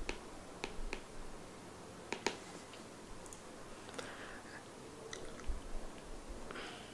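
Quiet room tone with a handful of faint, sharp clicks, most of them in the first two and a half seconds. There are two short, soft rushes of noise, one about four seconds in and one near the end.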